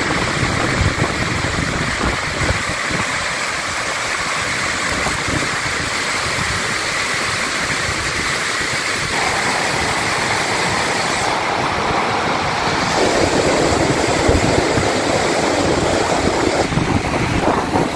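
Steady rushing of a mud-laden flash flood: thick mud and water pouring down a river channel between boulders. It grows fuller in the second half.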